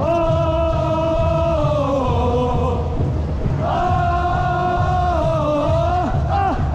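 Voices singing long held notes over a steady drum beat.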